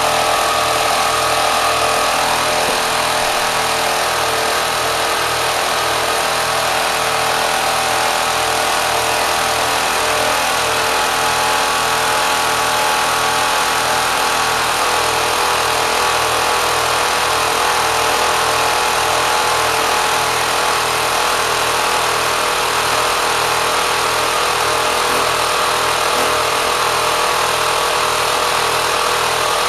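Kenmore sewing machine driven by a 3/4 hp electric motor, running steadily at high speed: a loud, even mechanical whir with a slow, regular pulse in the low hum.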